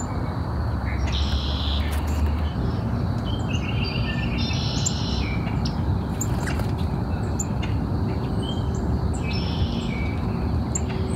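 Wild songbirds calling in woodland: several short runs of rapid repeated notes and scattered high chirps, over a steady low background rumble.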